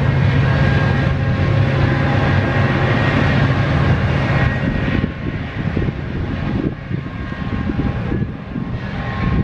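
MARC bilevel commuter train rolling past: a loud steady rumble of wheels on rail with a low hum. About halfway through, the hum drops away and the sound turns into a rougher, choppier clatter.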